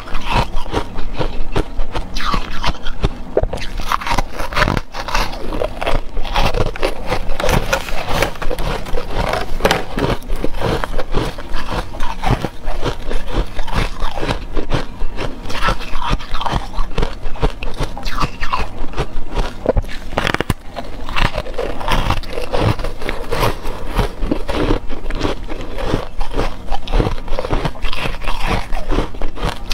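Close-miked biting and chewing of moulded ice shapes: a steady run of dense crunching and crackling as the ice breaks between the teeth.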